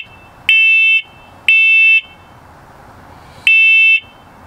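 First Alert combination smoke and carbon monoxide alarm sounding its self-test: loud, shrill half-second beeps in the three-beep smoke-alarm pattern, two beeps a second apart, a pause of about a second and a half, then the next set of beeps starting.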